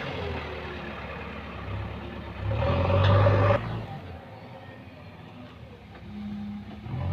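JCB backhoe loader's diesel engine running as the machine drives over the dirt. It revs up and gets louder about two and a half seconds in, then drops suddenly a little past three and a half seconds to a fainter, more distant engine hum.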